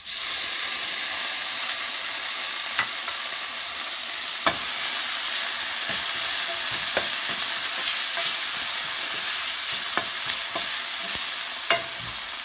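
Chopped onion, tomato and green chillies sizzling in hot oil in a stainless steel pan as they are sautéed, a steady hiss broken by a few knocks and scrapes of a wooden spatula stirring them.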